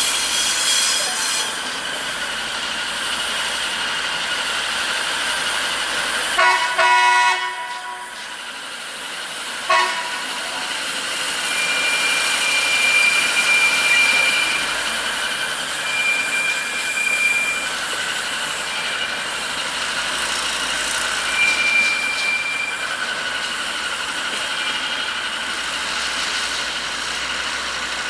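Track-inspection draisine pulling out, its horn sounding a long blast about six seconds in and a short toot about three seconds later, as a greeting. After that, steady high wheel squeals come and go several times over the running noise of the rail vehicle.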